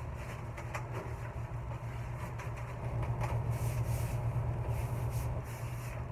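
Rustling of a waterproof fitted sheet as it is pulled over and smoothed down on a massage table, busiest in the middle, over a steady low hum.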